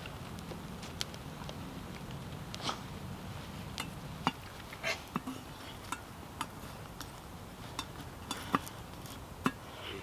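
Dry twigs snapping and crackling in short, sharp clicks, roughly one a second, a few louder than the rest.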